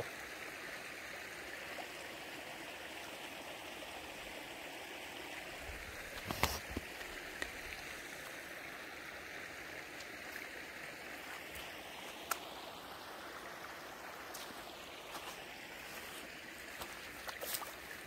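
Shallow stream water flowing steadily over a sandy bed, an even rushing trickle. A sharp thump comes about six seconds in, and a few faint clicks come later.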